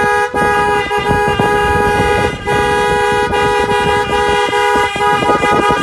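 Car horn held down in long honks, two notes sounding together, with brief breaks about a third of a second and two and a half seconds in.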